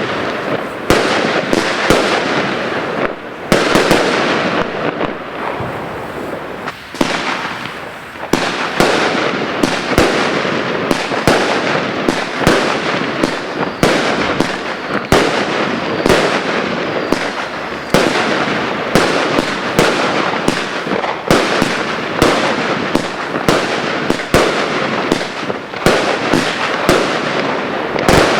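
Consumer fireworks going off in rapid succession: many sharp bangs, several a second, over a continuous crackle, easing briefly about seven seconds in before picking up again.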